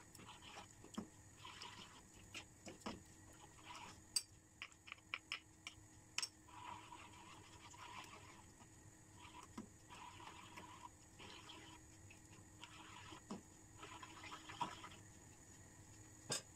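Faint wet swishing of a spatula stirring a thick cream and spinach sauce in a frying pan, coming in repeated strokes, with light clicks of the spatula against the pan and a quick run of clicks about four seconds in.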